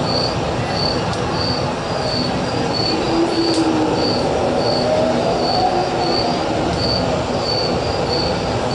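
Steady train-like rumble with faint sliding squeals, played while the stage holds a silent scene, and a short high chirp repeating about twice a second over it.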